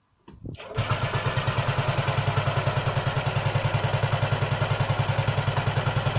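1961 Heinkel Tourist 103A2 scooter's four-stroke single-cylinder engine starting, catching within about a second and then idling steadily with an even pulse. It is running on a new Keihin carburettor with no air filter fitted and the choke off.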